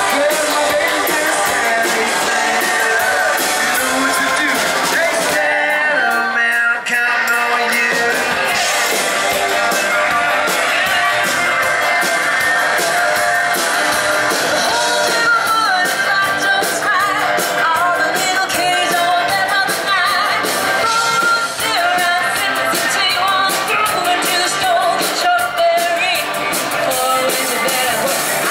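A live rock band plays a song with electric guitars and drums while a singer sings, with a momentary break about seven seconds in.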